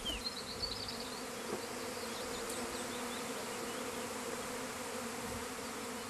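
A honeybee swarm, newly issued from its hive and settling on a tree branch, buzzing in a steady hum.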